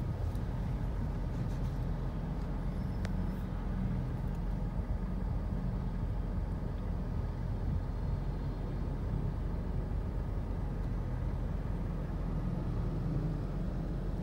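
Steady low rumble of a Mitsubishi Pajero Sport's engine and road noise, heard from inside the cabin while creeping in slow traffic.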